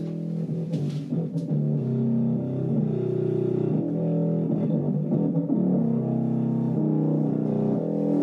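Guitar and bass music played through a Manta SPK204FM portable Bluetooth speaker. The sound is concentrated in the low mids and is thin on deep bass and treble.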